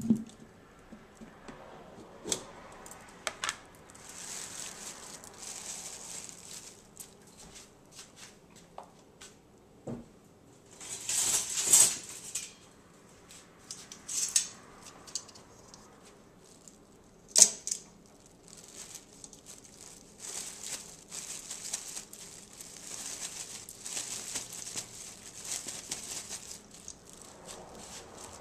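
Kitchen handling sounds: a plastic bag of flour crinkling in short bursts, with scattered clicks and knocks of dishes and metal tongs on the counter. The loudest are a crinkly burst about eleven seconds in and a sharp click a few seconds later.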